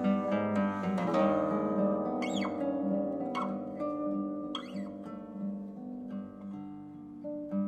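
Solo classical guitar playing slowly, plucked notes ringing over one another and gradually fading, with a few brief high sliding squeaks.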